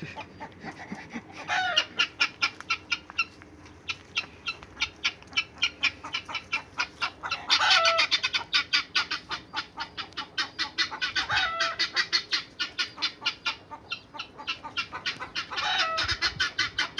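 A flock of fowl clucking rapidly, several calls a second, with a louder call that drops in pitch about every four seconds.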